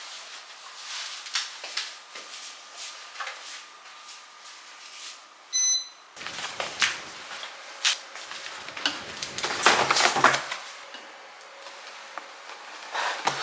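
Household items being handled and put away: a string of clicks, knocks and rustles, busiest near the end, with a short electronic beep about five and a half seconds in.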